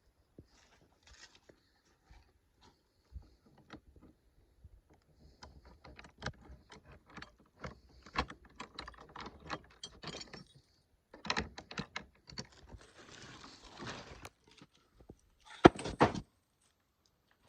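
A run of small clicks, knocks and rattles, like metal objects being handled, growing busier partway through, with a stretch of rustling and a loud clatter about 16 seconds in.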